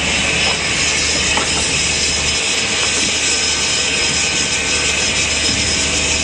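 Steady loud rush of a Cessna Caravan's PT6A turboprop engine and propeller in flight, with a faint steady whine running through it.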